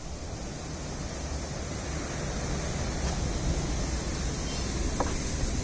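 Steady rush of sea surf and wind at a rocky seawall, with low rumbling wind noise on the microphone.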